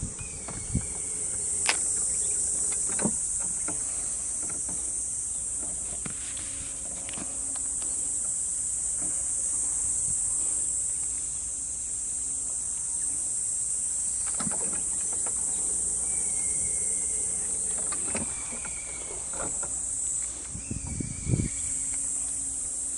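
Steady high-pitched drone of insects calling in summer heat, swelling and easing slowly. A few scattered knocks sound over it, with a small cluster near the end.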